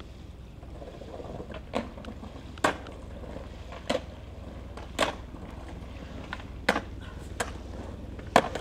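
Skateboard on concrete ledges: a series of sharp clacks from the board popping and landing, about seven spread over the stretch, over a steady low rumble.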